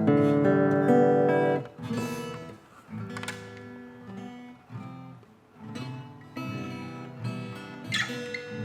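Acoustic guitar strumming chords, loudest in the first second and a half, then softer strums.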